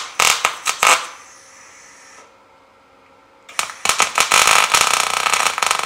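Electric arc welder crackling as two pieces of half-inch steel rod are welded together. The first run stops about a second in. After a quieter stretch, a second, denser run starts about three and a half seconds in.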